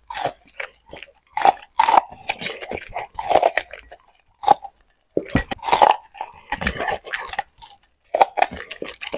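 Labrador gnawing kernels off an ear of corn on the cob, crunching and chewing in irregular bursts with brief pauses.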